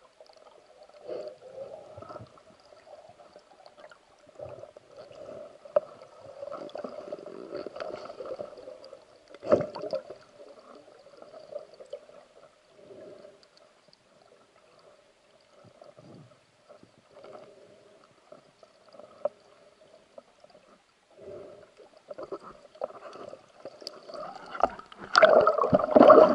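Muffled underwater noise through an action camera's waterproof housing as a diver swims: gurgling and scattered knocks, with a sharp knock about ten seconds in and a louder burst of churning water near the end as the camera comes up to the surface.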